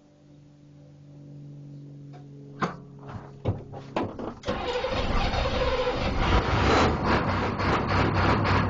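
1986 Chevrolet CUCV M1009's 6.2-litre diesel with open exhaust cold-starting after a glow plug cycle. A steady cranking sound builds for a couple of seconds, then a handful of sharp, uneven firing knocks come before the engine catches about four and a half seconds in and runs loud and rough.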